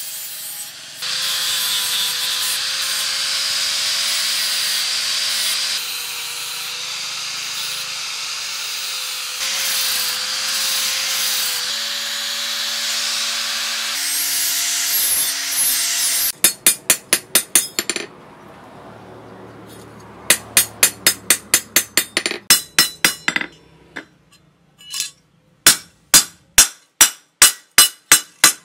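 A power grinder working the saw-disc steel for about the first sixteen seconds: a steady gritty rasp over a motor tone that shifts pitch a few times. Then three quick runs of sharp hammer blows on metal, about five a second.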